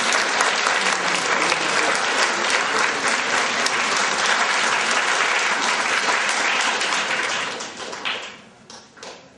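Audience applauding a performer coming on stage, a dense patter of many hands clapping that dies away about eight seconds in, leaving a few last scattered claps.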